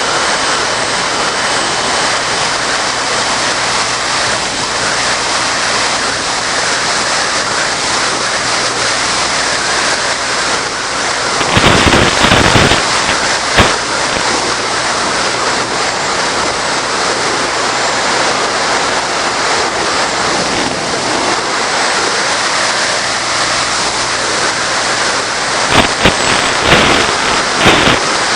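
Steady rushing hiss on the audio of a Bixler FPV plane's video feed in flight, broken by loud crackling bursts about twelve seconds in and again near the end.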